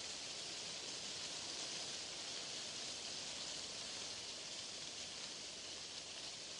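Steady, unbroken hiss of white noise, even in level and brightest in the high treble.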